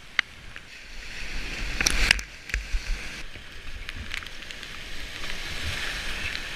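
Whitewater rapid rushing, swelling louder about a second in as the kayak reaches the foaming water, with several sharp splashes around two seconds in. Heard through a GoPro's waterproof housing.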